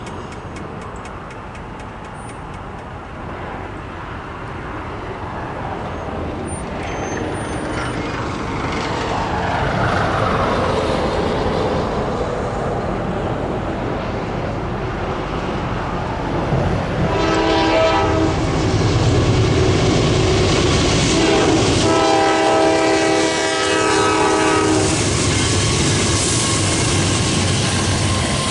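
A freight train approaching, its rumble growing steadily louder. The locomotive's multi-chime air horn sounds a short blast and then a longer blast, and the train carries on rumbling loudly past.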